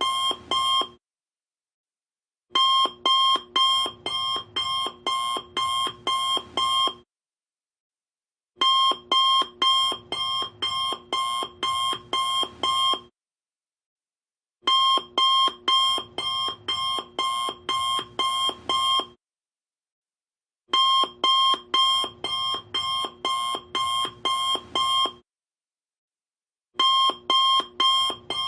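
Alarm clock ringing in repeated bursts of about two rings a second. Each burst lasts about four and a half seconds and is followed by a silence of about a second and a half.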